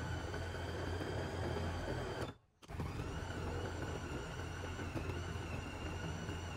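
Small electric food chopper's motor running steadily with a whine, blending fruit into a smoothie. The sound drops out for a moment about two and a half seconds in.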